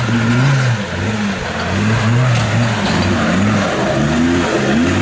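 Off-road 4x4's engine revving in repeated short blips, its pitch rising and falling about twice a second, as it pulls the vehicle up over rocks.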